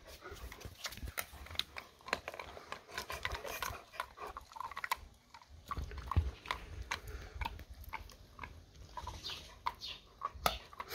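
A dog chewing a long, hard chew treat, its teeth making irregular crunching clicks and gnawing sounds, with a couple of duller knocks.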